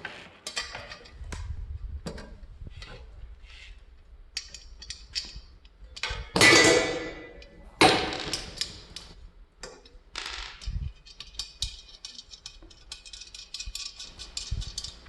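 Metal hardware being handled and screwed together: light metallic clicks and ticks throughout, with two louder ringing clanks about six and eight seconds in, and a run of quick ticks near the end.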